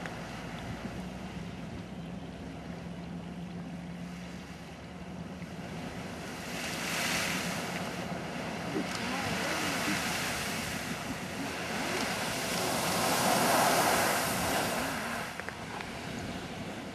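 Great Fountain Geyser erupting: a rushing hiss of water and steam bursting from the vent. It swells in surges, is loudest a little past the middle, and drops off suddenly near the end.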